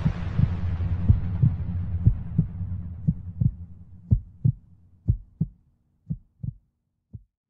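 Electronic title-card music: low thumps over a low drone that fades out. The thumps thin out into pairs about a second apart, like a heartbeat, and stop shortly before the end.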